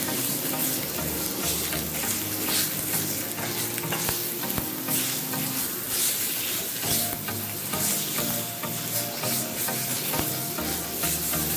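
Ground spice paste, lemongrass, galangal and kaffir lime leaves sizzling in hot oil in a stainless steel frying pan, stirred and scraped around with a spatula while the paste is sautéed until fragrant.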